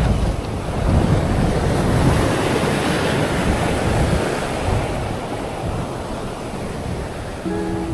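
Wind buffeting the microphone over surf breaking on the shore, rising and falling in gusts. A few steady musical tones come in near the end.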